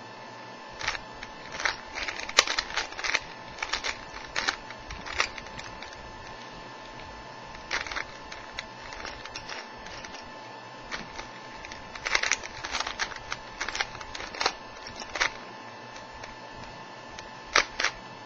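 Plastic clicking and clacking of a brand-new 3×3×3 Rubik's Cube being turned by hand, in irregular flurries of quick turns with short pauses between them, over a faint steady hum. The cube is still stiff and not yet broken in, so its layers do not turn freely.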